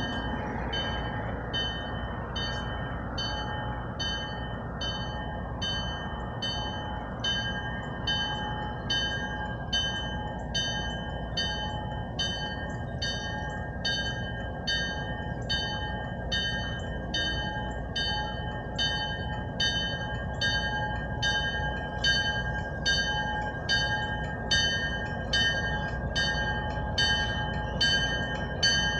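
Railroad grade-crossing bell ringing steadily, about one and a half strikes a second, over the continuous low rumble of an EMD GP-9 diesel locomotive.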